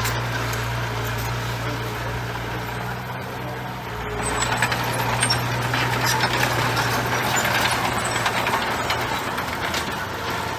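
Heavy diesel earthmoving machinery running with a steady low drone. It grows louder about four seconds in, with a rattle of many small knocks over the engine.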